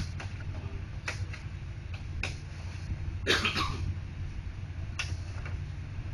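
Plastic printer parts being handled, giving scattered sharp clicks about once a second. About three seconds in comes a longer, noisier rattle. A steady low hum runs underneath.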